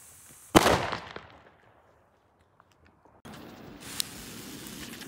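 A firecracker goes off about half a second in: one sharp, very loud bang that echoes and dies away over about a second. About three seconds in, a lit fuse sizzles and throws sparks, with one sharp crack about a second later.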